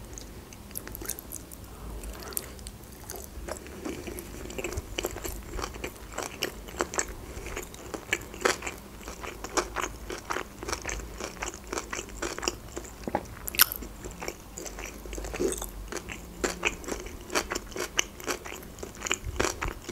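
Close-miked chewing of a mouthful of salmon-topped Philadelphia sushi roll: a steady run of small, irregular wet clicks and soft crunches.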